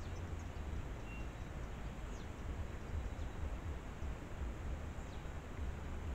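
Steady hiss and low rumble of a trail camera's microphone outdoors, with a few faint, quick, high descending chips from small birds and one brief thin whistle about a second in.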